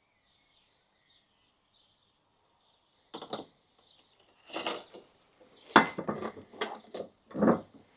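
Glass reagent bottle and beakers clinking and knocking on a lab bench as a bottle of sulfuric acid is finished with and set back down: a run of sharp clinks starting about three seconds in, the loudest a little before six seconds. Faint bird chirps before the clinks.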